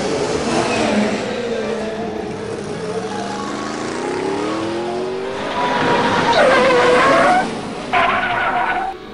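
Race-car sound effects: an engine revving with its pitch rising, then a tyre squeal about six seconds in.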